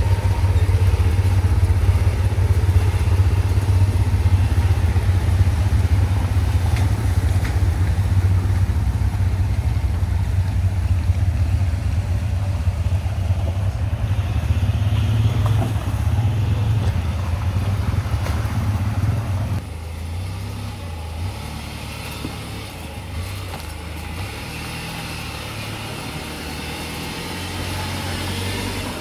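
Off-road 4x4 truck driving, its engine running low and steady. The sound drops in level and changes about two-thirds of the way through.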